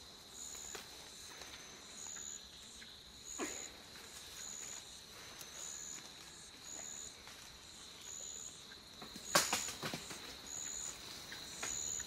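Tropical rainforest insects: one calls in short high chirps about once a second over a steady high insect drone. A few soft clicks sound through it, and one sharp crack, the loudest sound, comes about nine seconds in.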